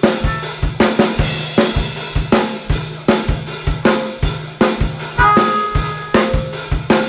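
Live band playing: a Ludwig drum kit keeps a steady kick-and-snare groove under electric bass. About five seconds in, a harmonica played into a microphone comes in with a long held note.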